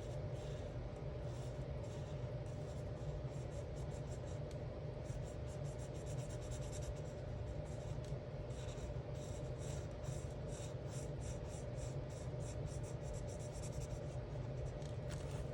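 Alcohol marker tip scratching across colouring-book paper in quick back-and-forth strokes, heaviest in the second half, over a steady low hum.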